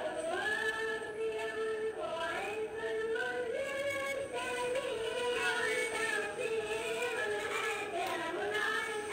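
A solo voice singing a slow melody with long held notes that glide up and down between pitches.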